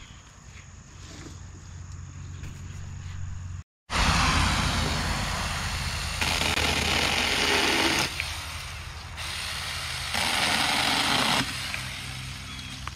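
Saker mini battery-powered electric chainsaw cutting through tree branches in bursts: a steady cut of about four seconds starting about four seconds in, then a shorter cut of about a second near the end.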